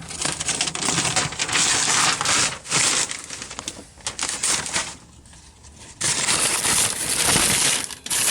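Masking tape and masking paper being peeled off a freshly painted dashboard and crumpled: a dense paper crinkling and crackling that eases off for about a second, five seconds in.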